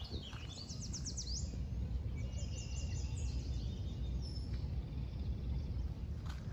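A songbird singing in two phrases of quick, repeated high sweeping notes in the first half, over a steady low rumble.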